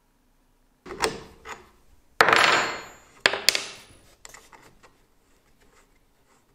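Small metal clicks and clinks of a single-flute end mill being fitted into a Dremel's collet by hand, with one louder rattling scrape about two seconds in and two sharp clicks just after it.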